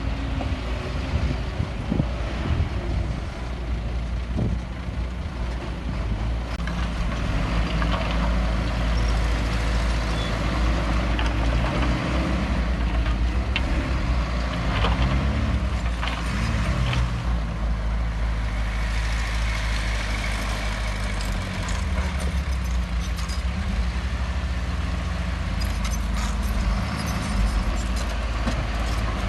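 Heavy diesel earthmoving machinery running, its engine note rising and falling under load, with occasional knocks and clanks.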